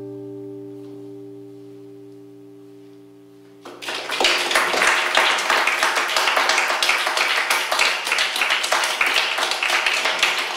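The final chord of an acoustic guitar ringing out and slowly fading; nearly four seconds in, an audience breaks into applause.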